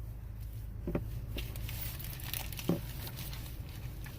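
Rain pattering steadily, a dense crackle of drops with a few louder single taps, over a steady low hum.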